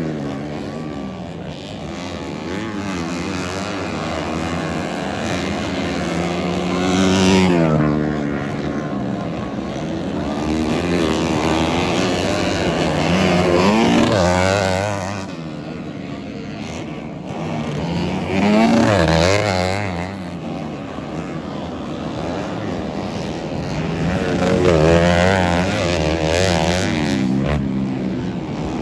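Dirt bike engines racing on a motocross track, revving up and down through the gears. The sound swells loudly about four times as bikes come past.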